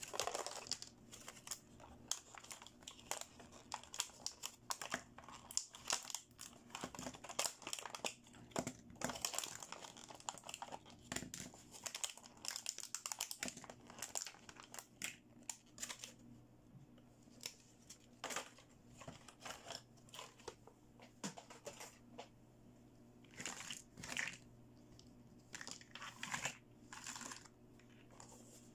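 Thin clear plastic blister packaging crinkling and crackling in irregular bursts as hands pull small plastic toy accessories out of it, with a quieter stretch in the latter half.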